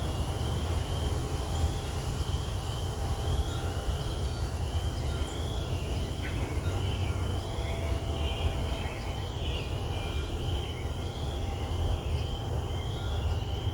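Outdoor background: a steady low rumble, with a high wavering chirp repeating about twice a second.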